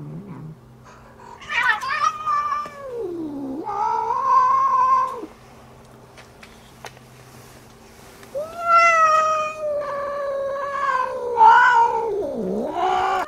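Cats yowling during mating: long, drawn-out caterwauls that slide up and down in pitch, one starting about a second and a half in and a longer run from about eight seconds in. It sounds like a cat fight but is the mating call of a tom mounting a tortoiseshell female.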